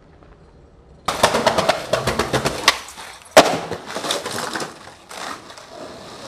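Skateboard wheels rolling hard over rough concrete, a loud, close rattle full of clicks that starts suddenly about a second in. A single sharp crack of the board hitting the pavement comes about halfway through, followed by quieter rolling and clatter.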